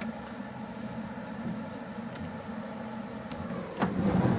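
Steady background noise with a few faint ticks, then a knock and a short louder clatter near the end.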